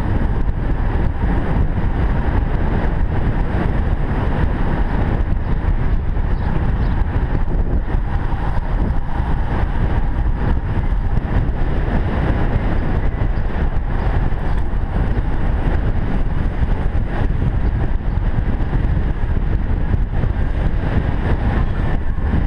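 Steady wind rush on a helmet-mounted camera's microphone while riding a road bike.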